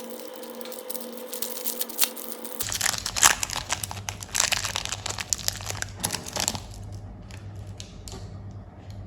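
Candy wrappers crinkling and tearing as candies are unwrapped, busy for about seven seconds, then thinning to a few scattered rustles and clicks.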